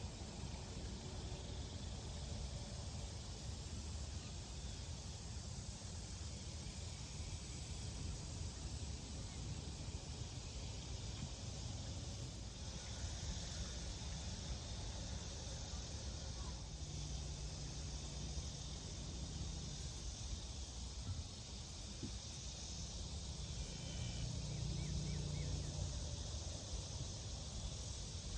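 Outdoor pasture ambience: a steady low rumble, like wind on the microphone, under a high insect hiss that grows a little stronger past the middle, with two short low hums later on.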